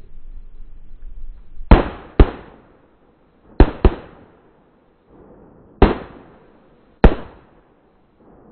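Shotgun shots, six in all: two quick pairs, then two single shots about a second apart, each followed by a short echo fading out over the marsh.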